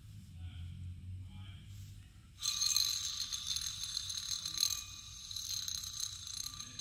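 Worn serpentine belt tensioner pulley from a 2005 Toyota Tundra's 4.7-litre V8, spun by hand about two and a half seconds in. Its bearing freewheels on with a scraping, grinding noise and a steady high whine, slowly dying away. The sealed bearing is dried out and has play.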